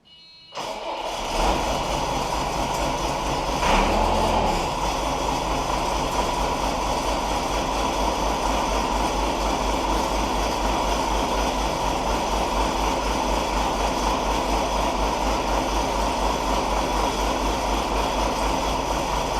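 JCB 214 backhoe's diesel engine starting up about half a second in and settling into a steady idle with an even low pulse, briefly louder about four seconds in.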